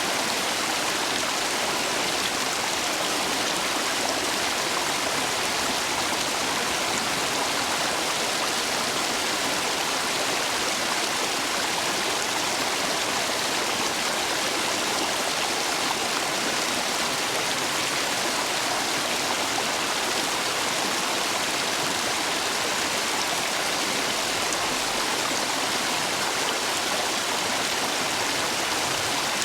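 Stream water running high after heavy rain, rushing steadily through gaps between stepping stones in a constant, even wash of noise.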